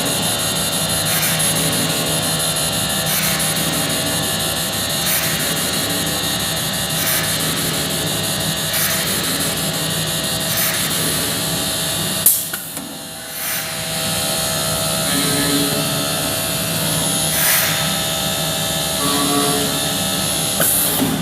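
Comec MD TOP CNC milling, drilling and mortising machine running on wooden furniture parts: a steady high spindle whine with a regular change every couple of seconds. About twelve seconds in there is one sharp, loud click and the sound briefly drops before picking up again.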